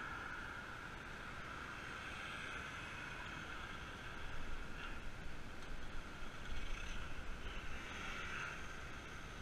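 Wind rushing over the microphone of a camera riding on a road bike, over a steady hiss. The low rumble turns gusty about four seconds in, as the bike picks up speed onto the road.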